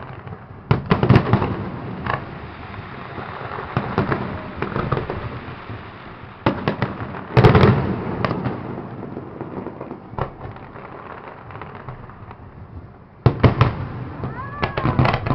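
Fireworks display: volleys of sharp bangs and crackling bursts, the biggest clusters about a second in, around seven to eight seconds, and near the end, over a steady rumble between them.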